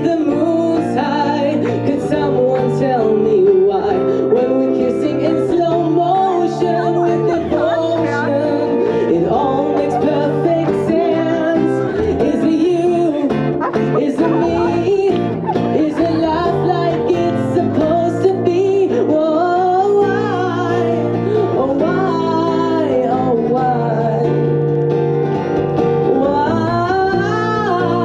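A live song: a singer's voice through a microphone, sliding between notes, over guitar accompaniment.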